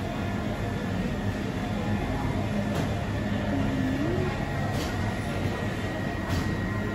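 Steady low hum and rumble of refrigeration machinery, the cold plate and freezer display cases running, with a few faint light clicks.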